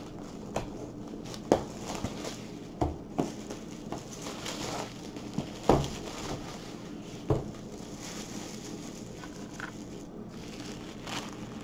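Clear plastic shrink wrap crinkling as it is peeled and pulled off a long cardboard box, with a scattering of sharp crackles and a few light knocks of the box being handled.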